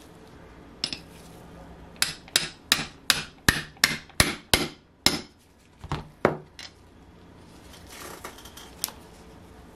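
Steel ball-peen hammer tapping a model engine's crankcase assembly in a bench vise to drive its crankshaft bearing home. One knock, then a quick run of about nine sharp taps at roughly three a second, then three more, with light handling noise after.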